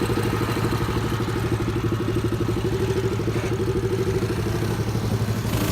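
Small single-cylinder four-stroke mini bike engine idling steadily, with an even, rapid pulsing beat.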